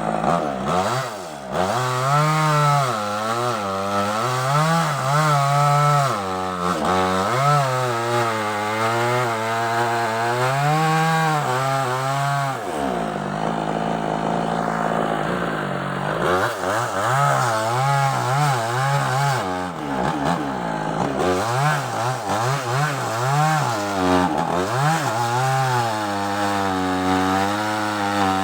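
Small chainsaw cutting sengon wood. The engine pitch rises and falls repeatedly as the chain loads up in the cut and frees again, and it runs more evenly for a few seconds around the middle.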